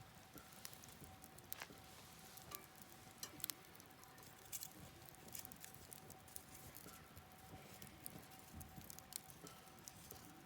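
Wood campfire crackling: scattered sharp pops and snaps at irregular intervals over a faint steady hiss.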